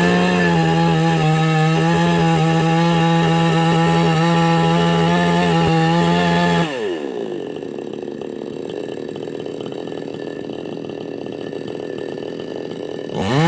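Two-stroke chainsaw held at full throttle for about six and a half seconds, then dropping back to idle, and revving up again sharply right at the end.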